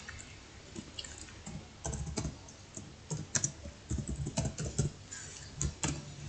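Typing on a computer keyboard: a run of quick, irregular keystrokes, thickest from about two seconds in.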